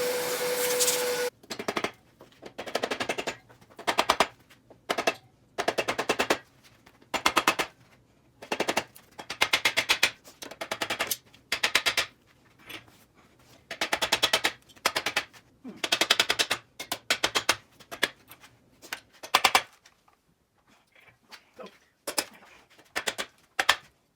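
Repeated bursts of rapid clicking from a wrench working fasteners off the engine during disassembly, each burst up to a second long with short pauses between. It opens with a steady whirring hum with a whine in it that cuts off about a second in.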